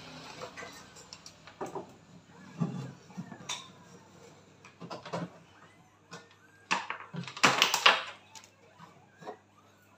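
An LCD television's plastic casing and stand knocking, clicking and scraping on a wooden workbench as it is turned and moved by hand, the loudest clatter about seven to eight seconds in.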